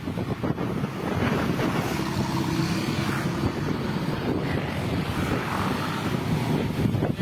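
Wind buffeting the microphone outdoors: a steady, rumbling noise.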